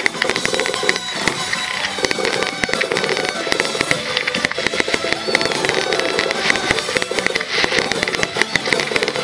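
Aerial fireworks crackling and popping in a dense, rapid stream, with the show's music playing underneath.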